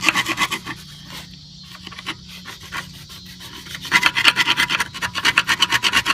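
Small chisel scraping corrosion off a metal wheel rim in quick short strokes, down to bare metal. The strokes ease off after about a second and pick up again, fast and steady, about four seconds in.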